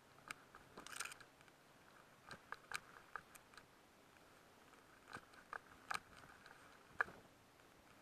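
Faint, irregular crackles and snaps of dry grass and brush as someone walks through it, a dozen or so sharp clicks with one louder snap about seven seconds in.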